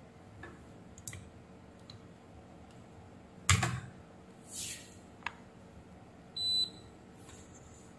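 Pliers clicking on a switch-mode power supply's circuit board as the blown fuse is worked loose, with one sharp clack about three and a half seconds in. A single short high beep from a digital multimeter comes a little after six seconds.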